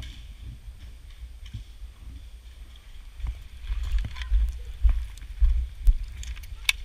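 Heavy thumps about twice a second, typical of a player's footsteps and gear jostling against a body-worn camera microphone, starting about three seconds in, with a few sharp snaps, the sharpest near the end.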